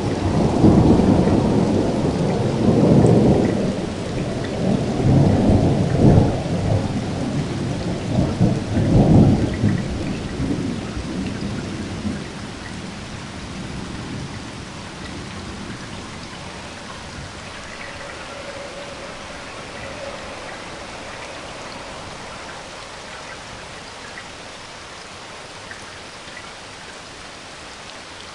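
Thunder rumbling over steady rain, swelling several times in the first twelve seconds or so, then dying away and leaving the even hiss of rainfall.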